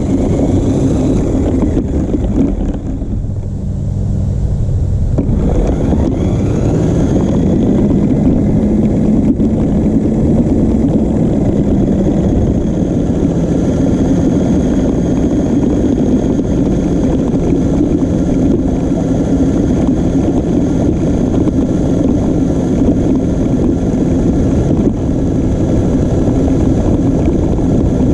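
New Bright Grave Digger RC monster truck's electric motor and gearbox whining as it drives, heard from a camera mounted on the truck's body, with loud rumbling noise from the running gear. About five seconds in the motor's pitch rises as it picks up speed, then it runs on steadily.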